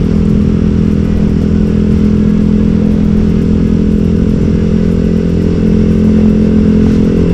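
Motorcycle with an aftermarket TZM Project exhaust running at a steady cruising speed, the exhaust note holding an even pitch.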